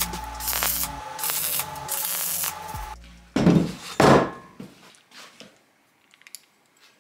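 MIG welder arc crackling and hissing in several short bursts, as in tack welding a small steel bracket. About halfway through, two loud whooshes cut in, the loudest sounds here, followed by near quiet with a few faint clicks.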